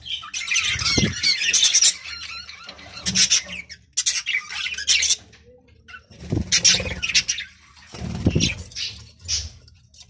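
A flock of budgerigars chattering and chirping in repeated bursts, with wing flaps now and then.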